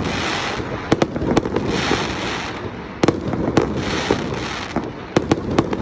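Fireworks display: sharp bangs of shells bursting, some in quick clusters about a second in, three seconds in and near the end, with stretches of hissing, crackling sparkle between them.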